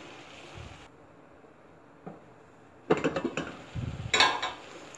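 A metal utensil clattering against a stainless steel cooking pot: a quiet stretch, then two quick runs of sharp knocks and scrapes about three and four seconds in.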